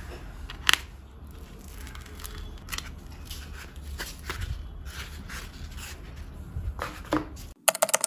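EPP foam airframe parts being trimmed with a snap-off utility knife and handled: scattered scrapes, creaks and clicks, with a sharper click under a second in and a quick run of clicks near the end.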